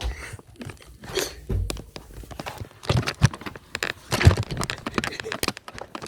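Irregular crunching, rustling and knocking, with several louder thumps scattered through, like objects or a phone being handled.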